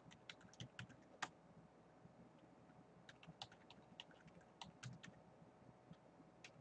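Faint computer keyboard keystrokes: irregular runs of light clicks as numbers are typed, with a pause of a second or so after the first run.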